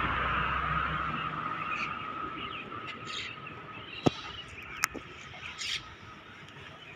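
A loud, steady mechanical noise with a constant whine fades away over the first two or three seconds. Birds chirp after it, and two sharp clicks come at about four and five seconds in.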